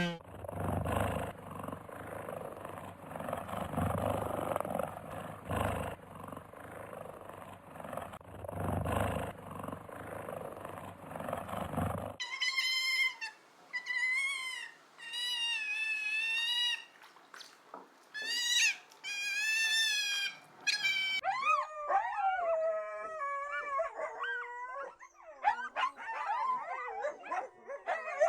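A run of animal calls: a rough, pulsing growling sound for the first dozen seconds, then short bouts of high, wavering cries, then many overlapping whining, howl-like cries that glide up and down.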